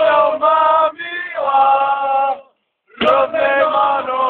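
A group of men singing a loud chant together in sustained sung phrases. The singing breaks off for about half a second about two and a half seconds in, then starts again.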